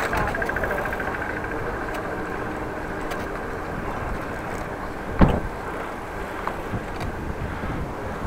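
Wind buffeting the microphone of a bike-mounted action camera over a steady rumble of riding along a city street, with one sharp knock about five seconds in.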